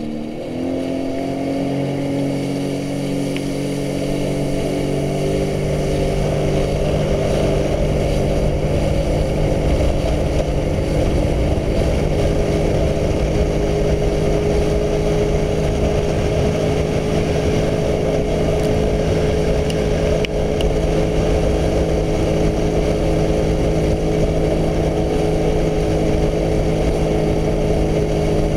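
Jet ski engine running at high speed, its pitch climbing over the first second or two as it accelerates and then holding steady, over a constant rush of wind and water spray.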